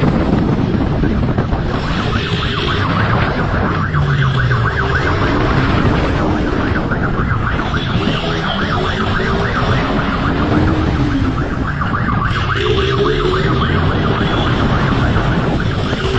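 Motorcycle at speed, its engine revving up and down under heavy wind rush on the camera, with a wailing siren rising and falling every few seconds.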